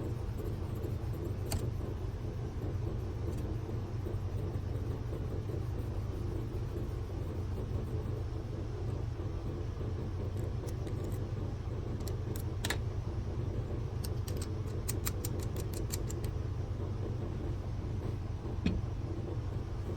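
A shear-sharpening machine's motor runs with a steady low hum. A few light metallic clicks sound over it, with a quick run of ticks about three-quarters of the way through.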